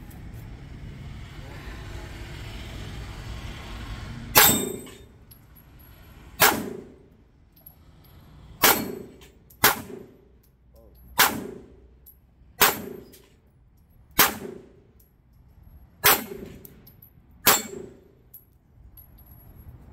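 Nine pistol shots at an unhurried pace, one every one to two seconds, each with the ring of the bullet striking steel plate targets.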